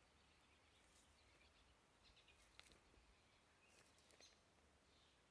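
Near silence with faint birdsong: scattered short chirps, bunched about two and four seconds in, over a faint steady hiss.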